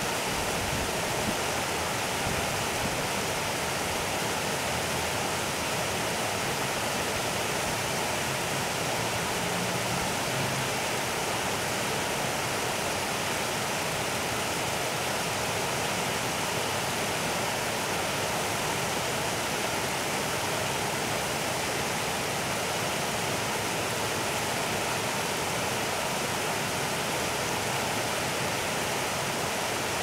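Shallow river water flowing over a gravel bed, a steady, even rushing babble.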